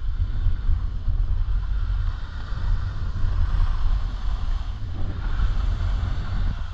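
Wind buffeting an action camera's microphone while skiing downhill: a steady low rumble over a continuous hiss of skis sliding on snow.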